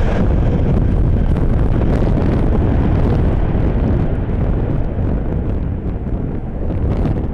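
Strong wind buffeting the microphone: a loud, dense low rumble, with the higher hiss easing off about three seconds in.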